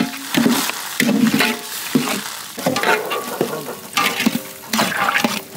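A metal ladle stirring and scraping through a thick curry in a large metal pot, in irregular strokes, with the sizzle of food frying in the pot.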